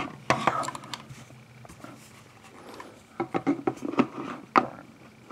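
Reinforced-fiberglass VEPR-12 shotgun magazines being handled and laid side by side on carpet. A sharp click at the start, then light knocks and rustling, with a quick run of knocks about three to four and a half seconds in.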